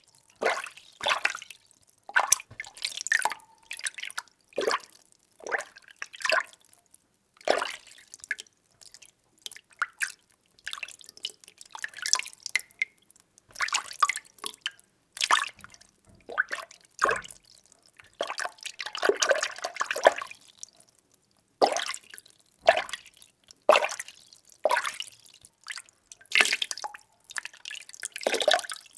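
Water being stirred, sloshing and splashing in short strokes roughly once a second, with a longer churning stretch about two-thirds of the way through.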